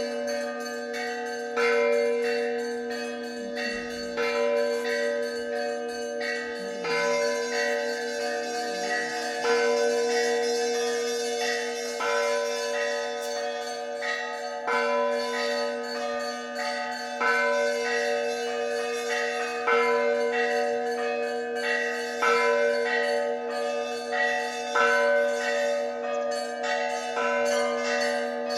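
Russian Orthodox monastery bells rung together: a big bell struck about every two and a half seconds, the deep tones of the larger bells ringing on between strokes, with quick, steady strikes of small higher bells over them. The ringing calls the faithful to a church service.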